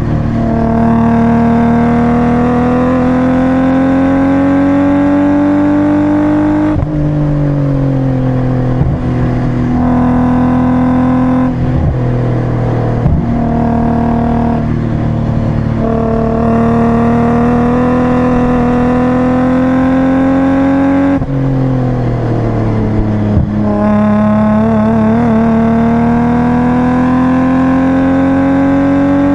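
BMW E36 328i's 2.8-litre straight-six engine heard from inside the cabin, running hard under load with its pitch climbing slowly. The pitch falls away about 7 seconds in and again about 21 seconds in, then climbs again.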